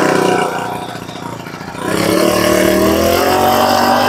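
Honda GX25 four-stroke brush-cutter engine running just after starting. About half a second in it drops back to a lower, quieter idle. Near the two-second mark it picks up again, and its pitch climbs as it revs up.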